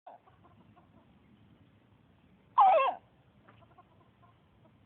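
A chicken sneezing: one short, loud, squeaky burst that falls in pitch, about two and a half seconds in.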